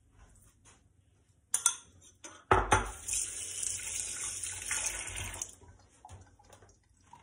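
A sharp clatter about two and a half seconds in, then a kitchen tap runs for about three seconds and is turned off.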